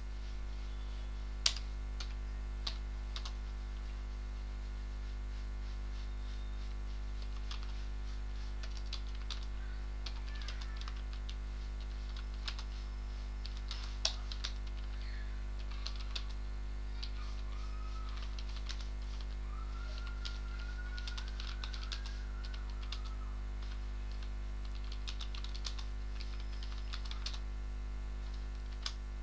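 Computer keyboard keys clicking in irregular runs of typing over a steady low electrical hum. A few strokes are louder, one about a second and a half in and another near the middle.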